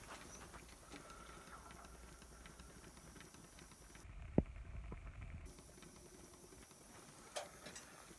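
Faint hiss of compressed air with scattered light mechanical clicks from a twin-cylinder slide-valve model marine steam engine run on air. One sharper click comes a little over four seconds in, and a few more near the end.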